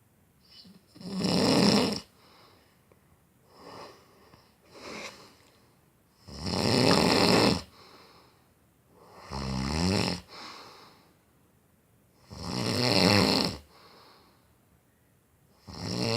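Loud snoring: five long, rasping snores a few seconds apart, with fainter breathing sounds between them.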